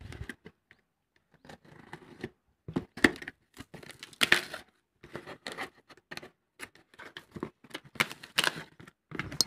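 Cardboard shipping box being cut and torn open by hand: sealing tape tearing and flaps scraping in short, irregular bursts, loudest about three and four seconds in and again near eight seconds.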